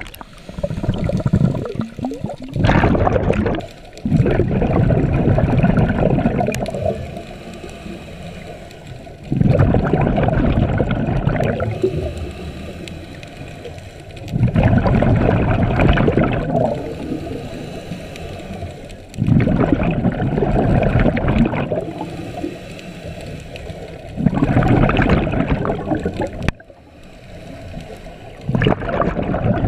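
Scuba regulator breathing heard underwater: a loud bubbling rush of exhaled bubbles about every five seconds, each lasting two to three seconds, with quieter stretches between breaths.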